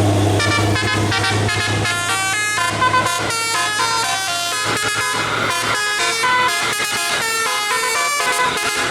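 A bus's musical 'telolet' air horn playing a quick melody of short notes that jump from pitch to pitch. A low steady hum sits under the first couple of seconds and then fades.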